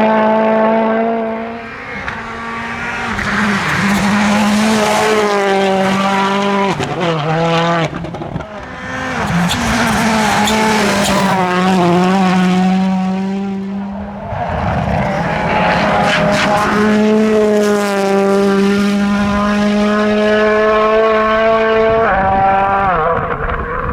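Rally cars driven flat out, engines held at high revs with quick downshifts and gear changes, one car after another going by. Sharp cracks punctuate the engine note around the middle.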